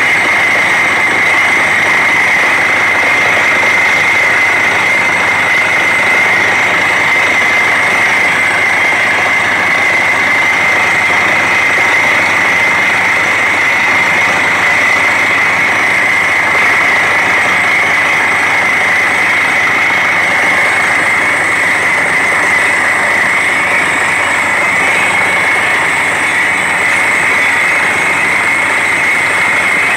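Truck-mounted borewell drilling rig running steadily while drilling, with compressed air blowing rock dust up out of the hole: a loud, even machine noise with a steady high whine running through it.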